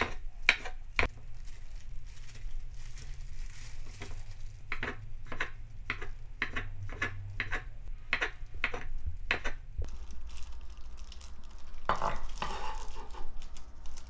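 Kitchen knife slicing rolled egg omelette into thin strips on a wooden cutting board: a run of sharp knife strokes on the board, about two a second, stopping about ten seconds in.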